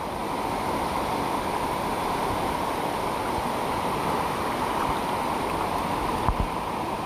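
Floodwater flowing across a flooded street: a steady rushing of water. A brief low thump about six seconds in.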